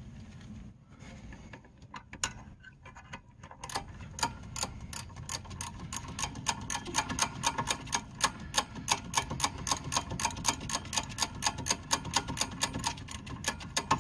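Hand ratchet clicking in a fast, even run, about four to five clicks a second, as a loosened rear brake caliper bolt is backed out. The clicking starts a few seconds in, after some faint scraping of the tool.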